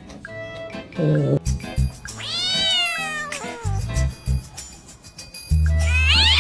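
A domestic cat meowing: one long meow that rises and falls about two seconds in, and another starting near the end, over background music with a steady bass.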